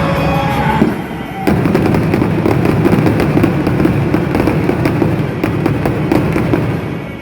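Fireworks going off in quick succession, a dense run of crackles and bursts over a low rumble, thickening about a second and a half in.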